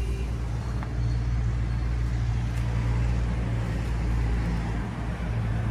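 Tractor's diesel engine idling steadily, a low even hum.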